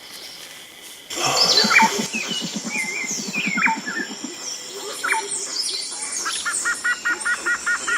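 Outdoor birdsong starting about a second in: several birds calling with short whistled and sweeping notes, and a rapid low pulsing call in the first half. From near the end a repeated paired chirp comes about three times a second.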